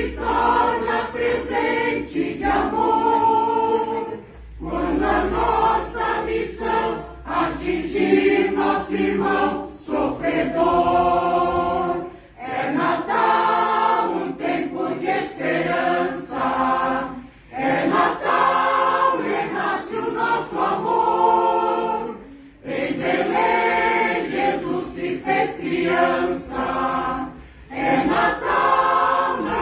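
Mixed-voice choir of sopranos, contraltos and basses singing a Christmas song in sustained phrases of a few seconds, each separated by a brief breath pause.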